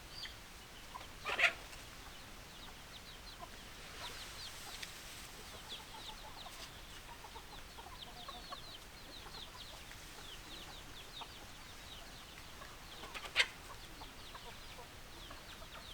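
Chickens calling: two loud, short squawks, one about a second and a half in and another near the end, over continual quick, high-pitched peeping and chirping.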